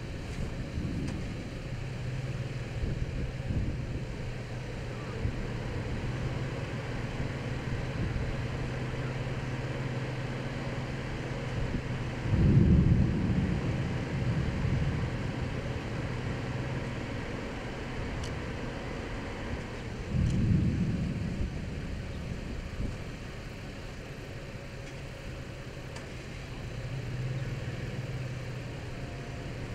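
Two low rolls of distant thunder from a supercell thunderstorm, one about twelve seconds in and one about twenty seconds in, each rising suddenly and fading over a few seconds, over a steady low hum of an idling vehicle and faint wind.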